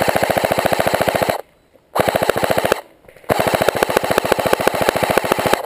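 Airsoft rifle firing three full-auto bursts in quick succession: a long one, a short one about two seconds in, and a longer one from about three seconds in, each a fast, even rattle of shots.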